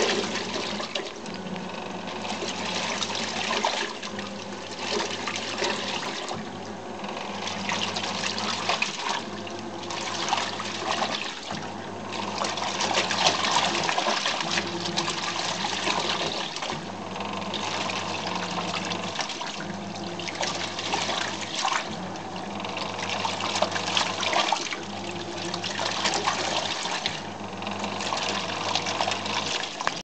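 Top-loading washing machine in its wash cycle: water and clothes sloshing and splashing in the drum over a low motor hum. The hum cuts out briefly every two to three seconds as the wash action changes direction.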